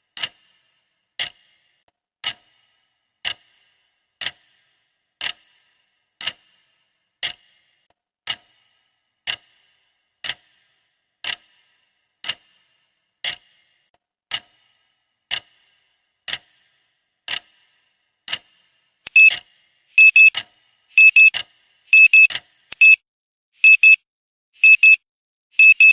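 Clock ticking at one tick a second, then, about 19 seconds in, a louder high-pitched digital alarm beeping in short clusters about once a second, signalling that the countdown has run out.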